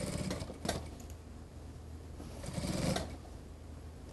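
Industrial sewing machine stitching through mink fur in two short runs, one at the start and a second about two and a half seconds in, with a faint motor hum between them.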